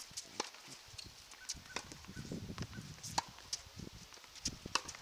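Tennis balls bouncing and being struck on outdoor hard courts: scattered faint, sharp knocks a second or so apart.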